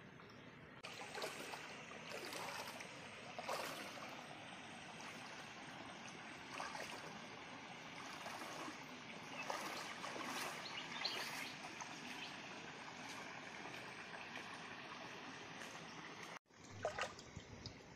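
Water splashing and trickling, with irregular louder splashes; the sound cuts out for a moment near the end, then picks up again.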